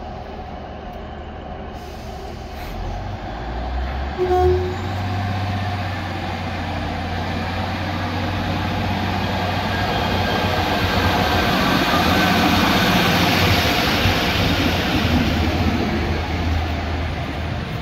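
Class 153 Sprinter diesel railcar with an underfloor Cummins engine, pulling away and coming past at close range. The engine drone starts a few seconds in. A brief horn toot sounds at about four seconds. Engine and wheel noise then build to a peak as the unit goes by.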